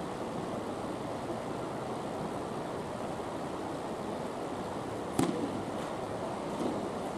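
A tennis racket striking the ball on a serve: one sharp crack about five seconds in, followed by a fainter knock about a second and a half later. A steady rushing noise sits underneath.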